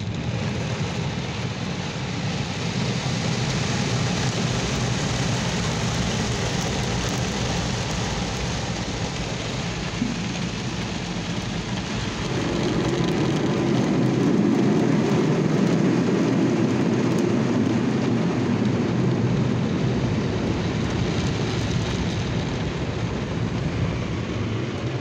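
Spinning foam-cloth brushes of a Washworld Profile Max soft-touch car wash scrubbing over the car's windshield and side window with water spray, heard from inside the cabin as a steady rain-like rush. It gets louder and heavier from about twelve seconds in, as a brush works the side of the car.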